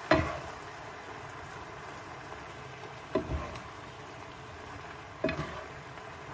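Pancit canton noodles sizzling in a frying pan while they are tossed with tongs and a wooden spatula. The utensils knock against the pan three times: at the start, about three seconds in and about five seconds in.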